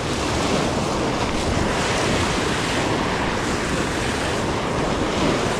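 Ocean swell surging and foaming against a rock ledge in a steady, continuous wash, with wind rumbling on the microphone.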